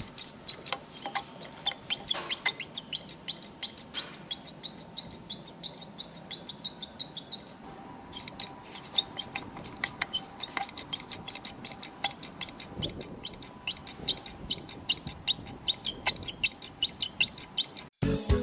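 A small bird chirping over and over, short high chirps about two to three times a second with a brief pause partway through.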